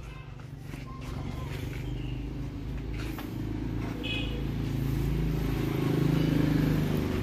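A motor vehicle engine running steadily, a low hum that grows gradually louder.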